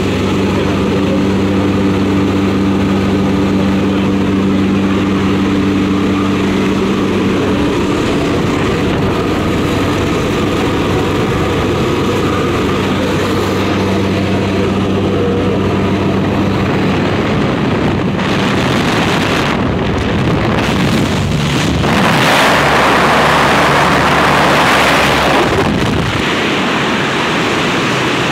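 Propeller aircraft's engine droning steadily in the cabin with the jump door open, then a loud rush of wind on the microphone in the second half as the skydivers leave the plane and fall.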